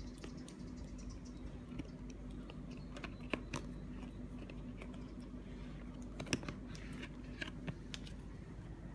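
Fingers tapping, picking and scraping at the edges of a stiff black cardboard box lid while trying to open it: a scatter of small irregular clicks, with a sharper tap about six seconds in.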